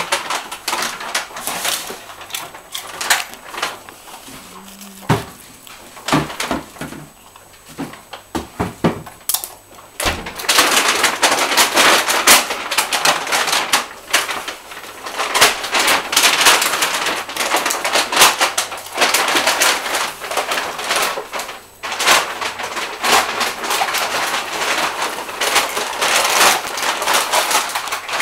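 Crackling and crunching of crisp potato chips. Scattered clicks at first, then a dense, continuous crackle from about a third of the way in, with a short break near the end.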